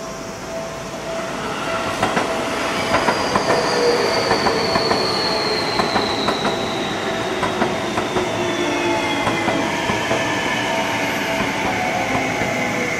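Seibu 30000-series electric multiple unit arriving and braking, its traction motor whine falling slowly in pitch as it slows. The wheels click over rail joints as the cars pass, loudest about 2 to 8 seconds in.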